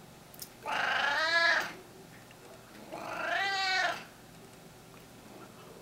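Domestic cat meowing twice, two drawn-out meows of about a second each, roughly two seconds apart, each rising and then falling in pitch.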